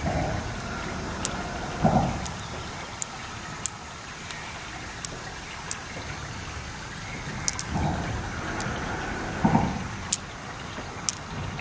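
Wet handling of a freshwater river clam's flesh as pearls are pressed out by hand. There are a few soft, low handling sounds and scattered sharp clicks of pearls knocking together in the palm, over a steady background hiss.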